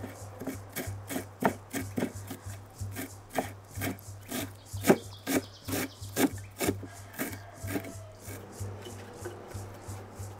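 Large kitchen knife chopping fresh cilantro on a wooden cutting board: a steady run of sharp chops about three a second, thinning out near the end.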